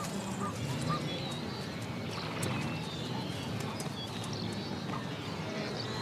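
Savannah wildlife sounds: a bird chirps in a quick repeated series in the first second, over low animal calls and scattered short clattering clicks.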